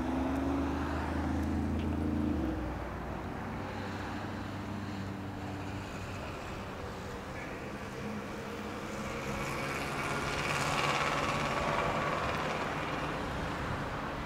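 City street traffic: a vehicle engine runs close by for the first two seconds or so and then drops away. Another vehicle passes, loudest about ten to eleven seconds in, over the steady traffic noise.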